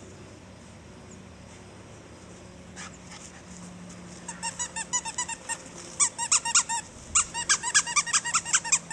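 Dog's rubber squeaky toy squeezed rapidly, about five squeaks a second, in three runs that start about four seconds in and get louder.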